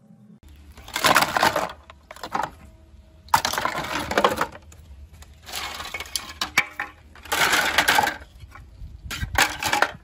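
Hard plastic Roomba shell and chassis parts clattering and knocking together in a plastic basin, in about six separate bursts.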